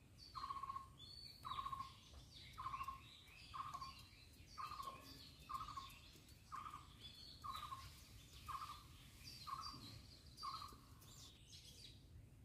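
A bird calling one steady note over and over, about once a second, with other birds chirping higher in the background; the calls stop shortly before the end.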